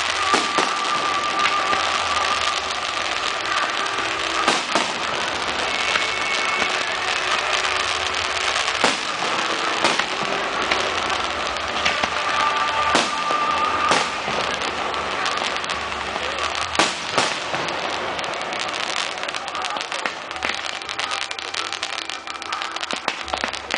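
Fireworks display: a dense, continuous crackle and hiss from ground fountains and bursting shells, broken by frequent sharp bangs, a few of them louder than the rest.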